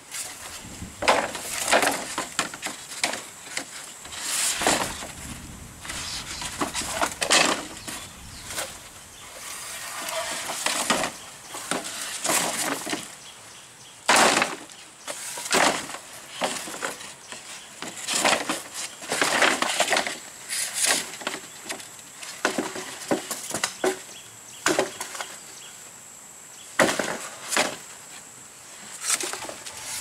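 Irregular knocks, cracks and rustles of hands-on building work, strike after strike at uneven intervals, with a faint steady high tone behind them.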